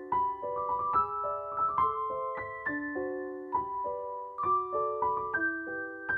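Gentle background piano music: a melody of single notes and chords struck several times a second, each ringing on as it fades.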